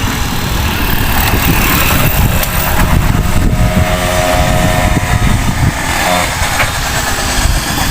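Stand-up scooter's two-stroke engine running through an MB Racing tuned expansion pipe fitted with its arrester, the pitch falling and rising again in the middle.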